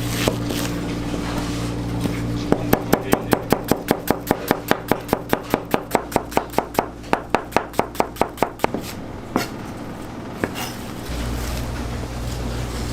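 Rapid, even knife chops on a cutting board, about six strokes a second for some six seconds, followed by a couple of single knocks, over a steady kitchen hum.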